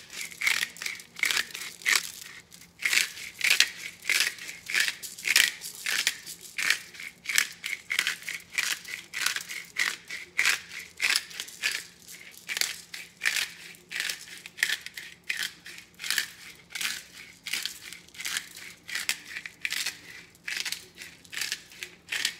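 Pepper grinder being twisted by hand, cracking black peppercorns: a steady run of short crunches, two or three a second.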